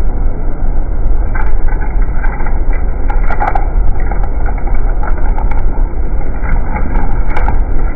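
Steady loud roar of water pouring over a low-head dam spillway, with scattered small clicks on top.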